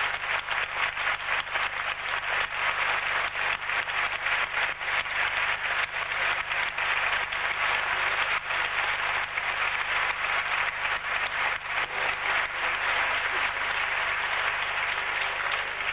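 Audience applauding: dense, steady clapping of a large crowd.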